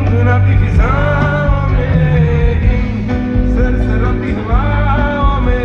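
Live band music played loud through a concert sound system and heard from within the crowd, a singer's voice gliding over heavy bass.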